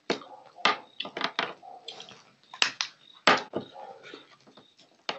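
Close-miked eating sounds: a man chewing and sucking fish off the bone, with a string of sharp, wet mouth smacks and clicks at uneven intervals.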